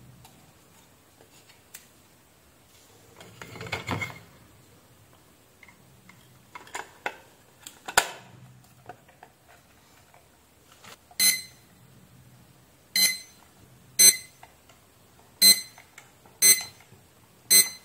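Plastic clicks and rustles of a handheld barcode scanner being handled, then the Panda scanner beeping six times, one short high beep about every second. Each beep is its good-read signal: the repaired scanner is now decoding barcodes.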